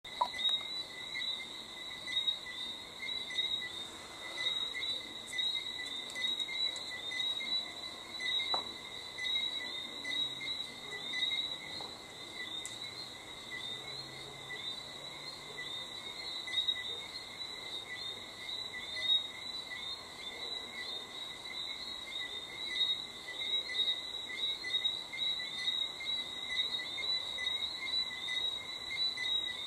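Night chorus of crickets, a steady, finely pulsing chirping at two pitches that carries on without a break.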